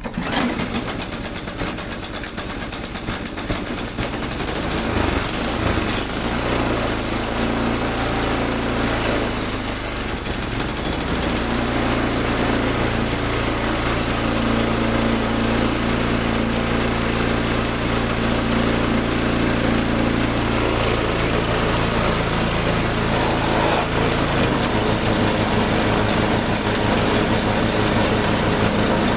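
Small snow blower engine catching on a cold start after being choked and given gas, then running on steadily. It gets louder a few seconds in, and its note changes about 24 seconds in.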